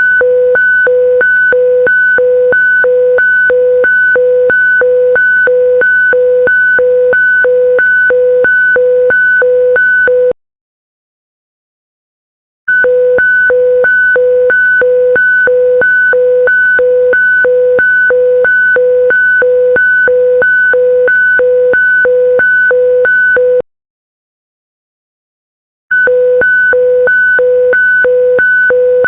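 Mock emergency alert alarm: a loud, harsh two-tone signal, one low tone and one high, pulsing about twice a second. It sounds in blasts of about eleven seconds, cutting off twice for about two seconds before starting again.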